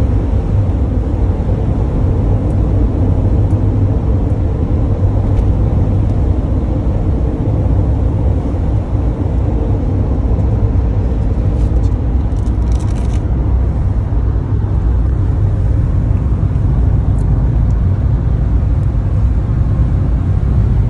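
Steady low rumble of road and engine noise inside the cabin of a van driving along a country road.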